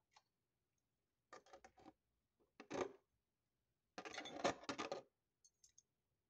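Three short bursts of rustling and scraping as food is picked by hand from a foil-covered plate, with a few faint clicks near the end.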